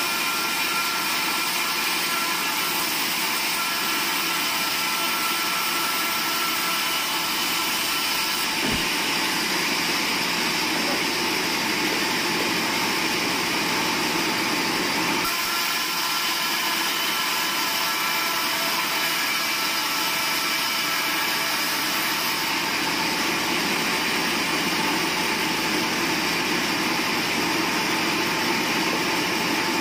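Large sawmill band saw running steadily while ripping a long wooden plank along its length, a constant noise with faint whining tones over it.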